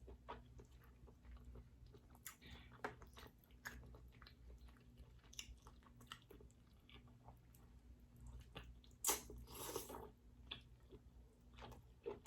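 Close-miked eating of king crab legs: soft chewing and wet mouth clicks, with a louder crackle about nine seconds in.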